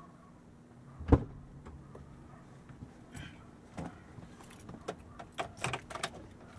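An SUV door shuts with a heavy thump about a second in, followed by keys jangling and a run of light clicks as the ignition key is worked to switch the vehicle on.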